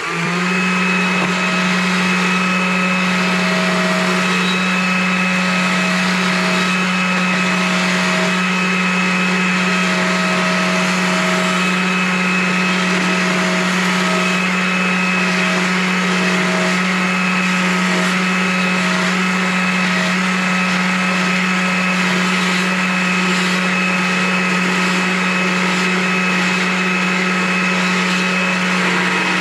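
Small gas chainsaw running at a steady high throttle, its chain cutting feather lines into a small wooden owl carving. The saw revs up sharply at the start and holds one steady high pitch throughout.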